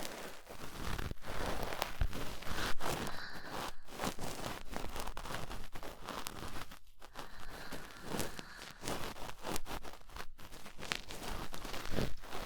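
Cotton swab rubbing and scraping inside a binaural dummy-head microphone's ear canal: dense scratchy rustling with many close-packed crackles and short strokes, without a break.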